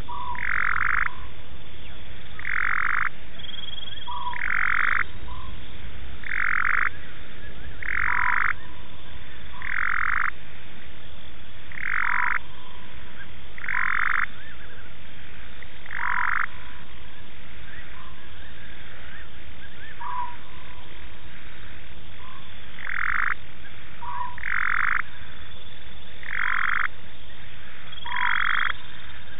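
A frog calling over and over: a short call about every two seconds, with a pause of several seconds midway, and a brief lower note after some of the calls.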